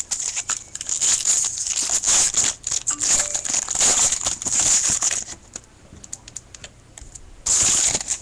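Foil wrapper of a Topps baseball card pack crinkling and tearing as the pack is opened. It goes on for about five seconds, then a few soft clicks of card handling, then a last loud crinkle near the end.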